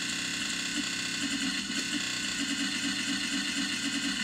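Circuit-bent Homedics Sound Spa SS-2000 sound machine putting out a glitched, pitch-shifted sound: a dense hiss with a fast stuttering buzz underneath, going on steadily.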